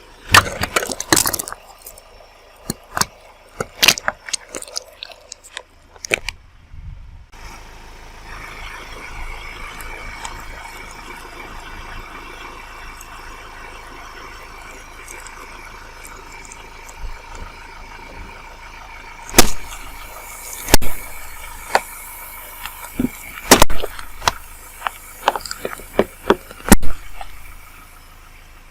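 Things being crushed under a car's tyre: a run of sharp cracks and crunches in the first few seconds, then a steady high whine with several more loud cracks and snaps in the second half.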